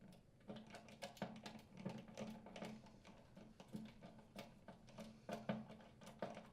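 Faint, irregular clicking and tapping of a hand tool and screw on a furnace blower assembly as the grounding wire is screwed back down.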